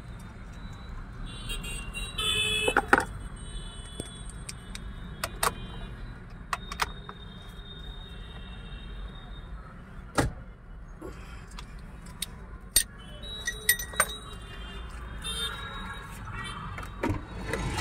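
Scattered metallic clicks and knocks from hand tools and steering-column parts as a new horn spiral cable (clock spring) is fitted around a Toyota Innova's steering shaft. They come over a steady low rumble.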